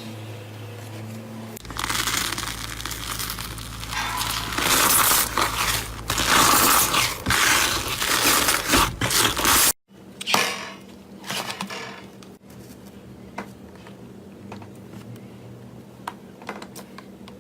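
Slime being squeezed and pressed by hand: dense, loud crunching and crackling for several seconds. After a sudden cut, a quieter stretch of scattered small crackles and pops follows.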